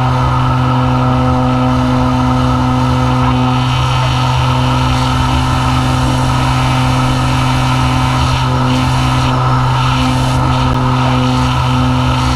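Electric motor and propeller of an E-flite Apprentice S15e RC plane, heard from a camera mounted on the plane, running at a steady pitch: a strong low hum with higher whining tones above it over a rush of air.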